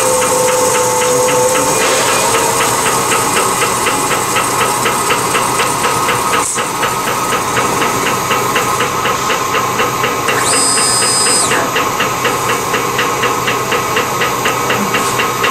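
Circular-knife roll slitting machine running with a steady mechanical hiss and hum and a rapid, even ticking. A brief high whine comes in about two-thirds of the way through.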